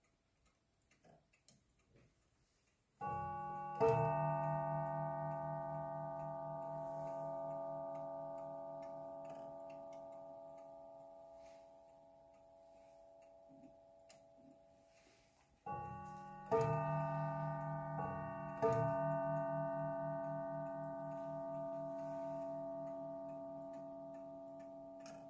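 Lenzkirch mantel clock's quarter-hour strike, set off by the minute hand being moved on by hand. There is one pair of strokes about three seconds in, then two pairs around sixteen and eighteen seconds in. Each note rings on and slowly fades, with the clock ticking faintly underneath.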